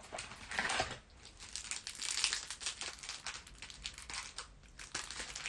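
Foil wrapper of a Magic: The Gathering booster pack being torn open and crumpled by hand: a dense, irregular run of sharp crinkles, loudest about two seconds in.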